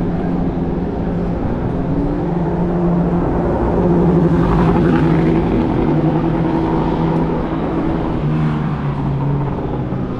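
Racing motorcycle engines running on the circuit, a continuous, loud engine note that swells briefly about four seconds in.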